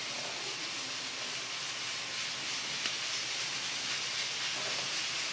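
Steady hiss of steam escaping from a pressure cooker.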